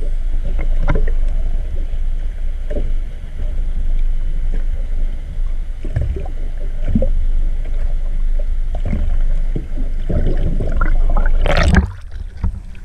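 Steady low rumble of a boat at sea, with water sloshing and occasional thumps; it drops away sharply about a second before the end.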